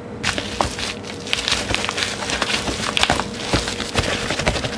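Shipping package being torn open by hand, its wrapping crinkling and crackling in a dense run of irregular rustles and sharp clicks.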